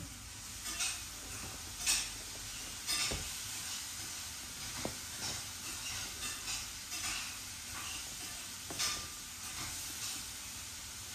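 Faint steady hiss with a few soft rustles and two or three light clicks as a finger presses the buttons on the top panel of a JBL PartyBox Encore speaker.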